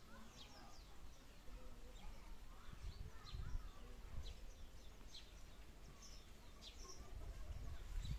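Faint rural ambience of small birds chirping, many short, quick calls scattered throughout, over a low rumble.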